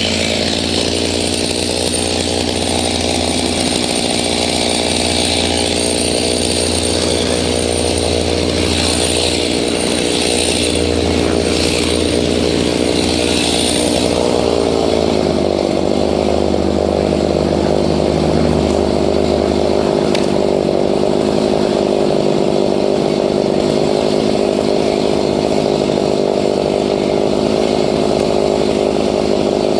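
Stihl MS 290 Farm Boss two-stroke chainsaw held at high revs while cutting a dead pine log, a loud, steady engine note. About halfway through the pitch drops slightly, then holds steady.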